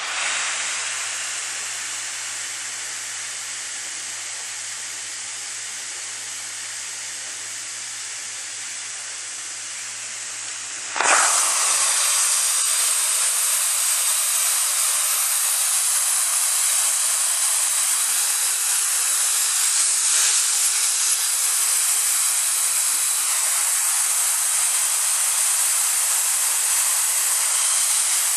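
Truck-mounted carpet extractor's vacuum pulling through a Waterclaw subsurface extraction tool: a steady hiss of suction as it draws the flooded neutralizer and urine up from under the carpet pad. The hiss turns suddenly louder about eleven seconds in and stays that way.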